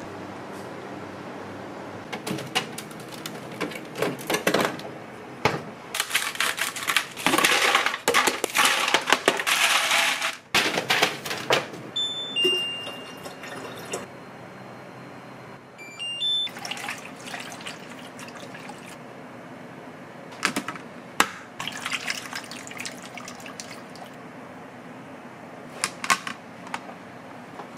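Water running from a tap in bursts, with clicks and clatter of kitchen handling. A few short, high electronic beeps come around the middle.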